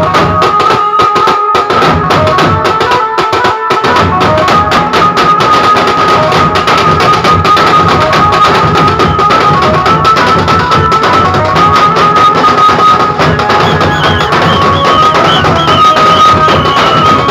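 A group of large dhol drums beaten hard with sticks in a fast, driving rhythm. A steady high held note runs above the drumming.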